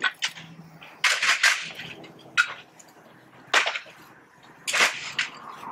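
Brittle asbestos-cement siding shingles cracking and shattering with sharp clattering cracks as they are torn off and hit the ground, several at irregular intervals with a quick run of them about a second in.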